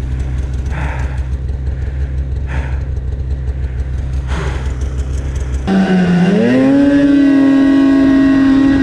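Snowmobile engine running at low revs with a steady low drone. About six seconds in it revs up sharply, rising in pitch and holding a high, steady note as the sled accelerates through deep powder snow, then drops away at the very end.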